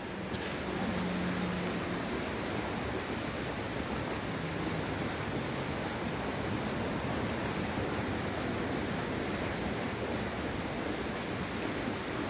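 Steady rushing outdoor background noise, with no distinct events standing out.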